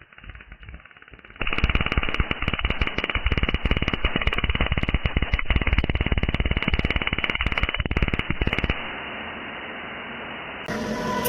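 Welding arc crackling loudly and rapidly, with many sharp pops, starting about a second and a half in and cutting off abruptly about seven seconds later. A quieter steady hiss remains after it, and music comes in near the end.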